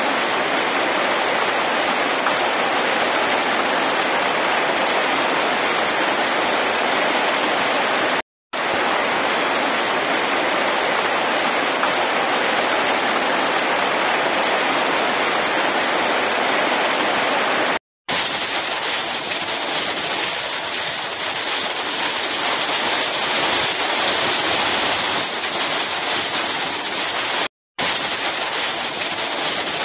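Heavy rain pouring down steadily in a rainstorm, a dense even hiss of rain on pavement and foliage. The sound drops out to silence three times for a split second.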